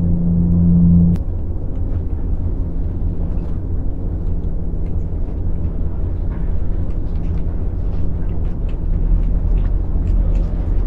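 Steady low rumble with a humming tone over it that cuts off about a second in, and faint scattered clicks later on.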